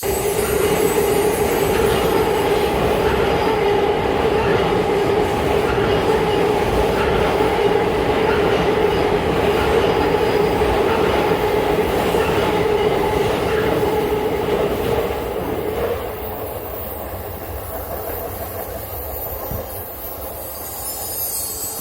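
A train passing close by on the rails. A steady tone sits over the rumble and drops away about three quarters of the way through, leaving a quieter rumble.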